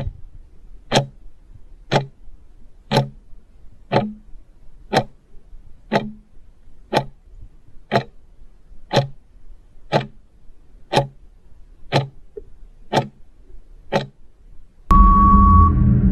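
Countdown clock-tick sound effect, one sharp tick each second, fourteen in all. About 15 seconds in it gives way to a loud sound effect with a steady beep, marking time up.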